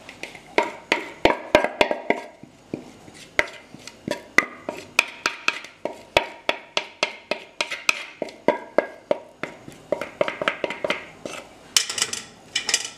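Wooden spoon tapping and knocking against a stainless-steel couscoussier steamer basket while vermicelli is spread in it: a busy run of sharp taps, several a second.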